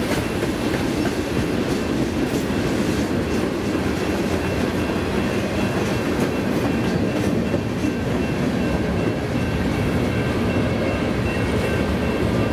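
Freight cars of a passing manifest train (tank cars, flat cars and a covered hopper) rolling by: a steady rumble of steel wheels on rail with scattered clacks over the joints and a faint, thin, high ringing tone.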